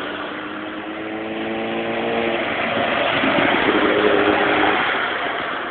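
Motorcycle passing close by, its engine a steady pitched note that swells to its loudest about four seconds in.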